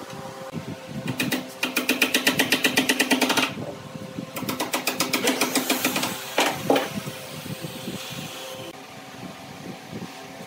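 Two bursts of rapid metallic clicking, about ten a second, as a bolt is tightened with a socket tool, followed by two sharp hammer taps about six and a half seconds in. A steady mechanical hum runs underneath.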